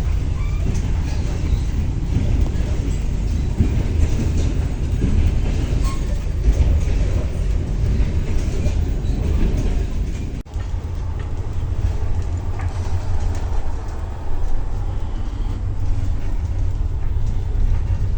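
Steady low rumble of a moving train heard from inside a double-decker passenger coach: wheels running on the rails, with a light rattle above the rumble. The sound breaks off for a moment about ten seconds in and carries on the same.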